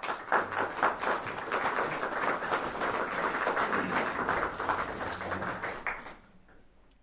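Audience applauding: dense clapping that starts suddenly, thins out about six seconds in and fades away.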